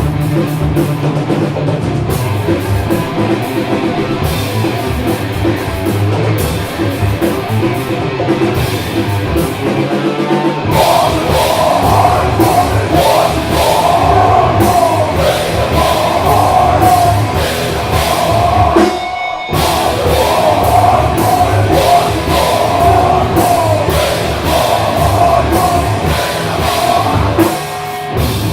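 Rock band playing live, with guitar and drum kit. About eleven seconds in, a wavering higher melodic line comes in over the band, and the music drops out for a moment just past the middle before carrying on.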